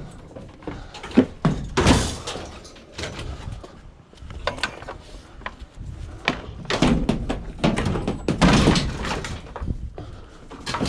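Irregular knocks, thuds and scraping clatter as scrap items are handled and loaded into a van, with the heaviest thuds about two seconds in and again past the middle.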